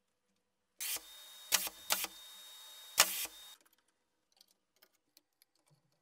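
Vacuum hose sucking air through a 3D-printed vacuum clamp cup: a steady hiss with a faint thin whistle, broken by four loud pops, which stops abruptly about three and a half seconds in. A few faint plastic clicks follow.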